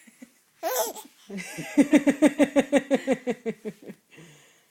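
Hearty laughter: a short high squeal, then a rapid run of laughing pulses, about six a second, slowly falling in pitch and fading out near the end.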